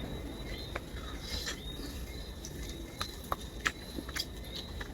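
Faint, scattered small clicks and taps of someone eating with a fork, about six or seven spread irregularly, over a faint steady high-pitched tone.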